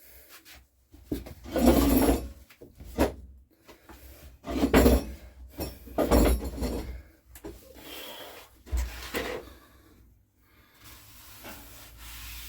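Rubbing and scraping handling noise: about six separate brushing strokes, as if dusting or wiping down parts, with a steady low hum coming in near the end.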